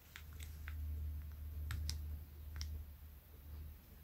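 Small, sharp clicks of plastic and metal parts of a disassembled Daiso spinning reel being handled and fitted by hand, about half a dozen in the first few seconds, over a low background hum.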